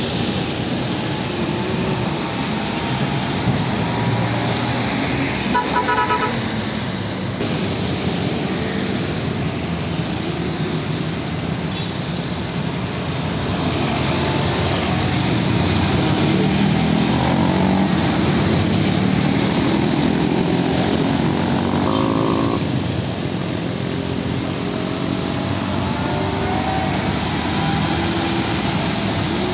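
Steady roadside traffic: heavy diesel trucks, among them UD Trucks models, running past with cars and motorcycles on a wet road. A horn gives a quick run of short beeps about six seconds in, and another horn sounds about twenty-two seconds in.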